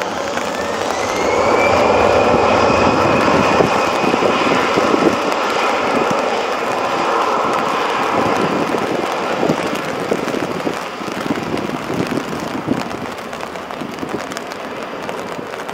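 Airbus A320-family jet's two engines spooling up to take-off thrust: a rising whine over the first two seconds, then a loud jet roar that slowly fades and grows crackly as the aircraft rolls away down the runway.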